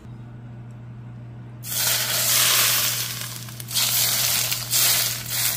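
Hot oil poured from a frying pan onto raw chopped vegetables and mashed saltfish, sizzling loudly from about a second and a half in and swelling and easing in waves as the oil hits.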